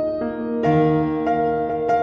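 Soft background piano music, slow notes struck a few times with long sustain.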